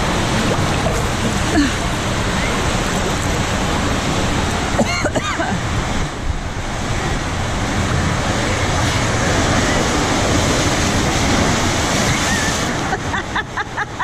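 Steady rush of water gushing from water-slide outlets into a splash pool, heard from a camera at the water's surface. Near the end the sound turns choppy, with quick regular slaps of water, about three or four a second.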